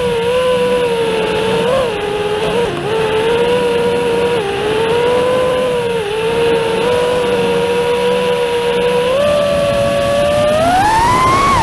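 A 5-inch FPV quadcopter's brushless motors (Geprc SpeedX 2306.5, 1850 kV) spinning three-blade Gemfan 51433 props, giving a steady high whine. The pitch dips and wobbles with small throttle changes, then climbs steeply near the end as the throttle is punched, and drops off sharply.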